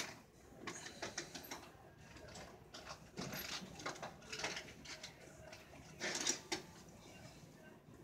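Ribbed vacuum hose being wrapped back around an upright vacuum cleaner by hand: faint rustling and scraping with scattered light plastic clicks and knocks, the loudest about six seconds in.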